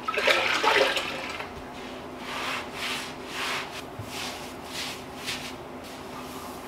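Damp grout sponge scrubbing across freshly grouted ceramic subway tiles, wiping off the excess grout in repeated strokes about two a second. A louder, busier burst of sound comes in the first second.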